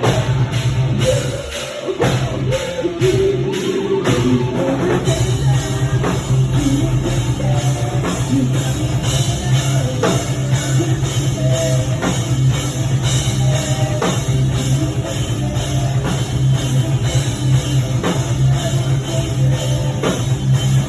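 Metalcore / hard rock music: heavy electric guitars over a driving drum kit, with a brief drop about two seconds in before the full band comes back.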